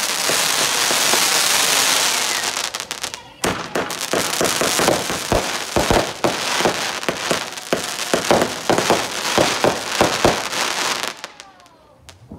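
Fireworks going off: a loud rushing hiss of sparks for about three seconds, then a long run of rapid crackling pops that stops about eleven seconds in.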